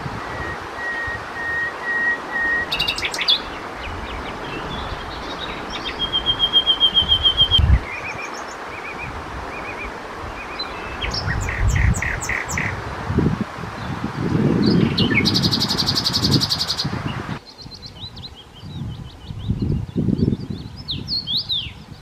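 Common nightingale singing in varied phrases: a slow series of repeated whistled notes, then a fast trill, short runs of clipped notes, and a very high rapid rattle, with pauses between phrases. The song cuts off suddenly near the end.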